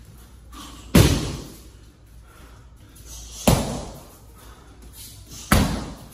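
Kicks landing on a handheld kick shield: three loud smacks about two to two and a half seconds apart, each ringing briefly in the room.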